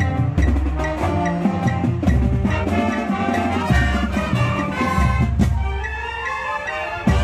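School band playing a piece: flutes, saxophones and brass over drums and low bass notes.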